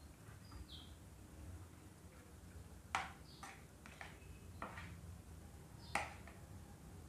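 A spoon clinking against a plate a few times while eating, with two sharper clinks, one about three seconds in and one about six seconds in, and softer ones between.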